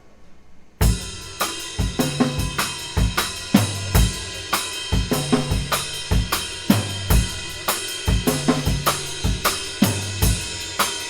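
A rock band starts playing live about a second in, with no singing yet. The drum kit is loudest, beating out a steady kick-and-snare rhythm with cymbals over held pitched instrument notes.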